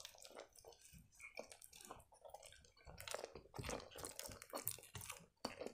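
Close-miked chewing of a mouthful of shawarma: soft, wet mouth clicks and smacks, sparse and faint at first, then denser and louder from about three seconds in.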